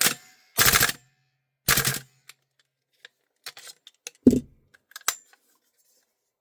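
Bolt and charging handle of a Double Eagle Ghetto Blaster gas blowback airsoft rifle being worked to show the bolt lock. There is a sharp clack at the start, then two loud rasping metal racks about a second apart. About four seconds in comes a duller knock, followed by a few light clicks.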